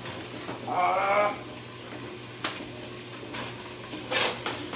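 Raw carnitas meat being squeezed out of a plastic package into a stock pot. A brief wavering vocal sound comes about a second in, then a couple of small clicks and a short crinkling splat near the end.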